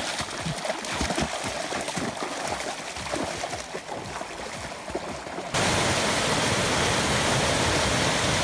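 Shallow river flowing, with some low knocks. About two-thirds of the way through it cuts abruptly to the louder, steady rush of a small waterfall pouring over rocks.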